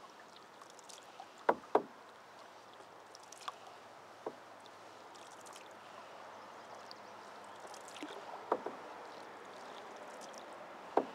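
Canoe paddling: paddle strokes in calm water over a steady wash, with several sharp knocks of the paddle against the canoe, two in quick succession about a second and a half in and others spread through.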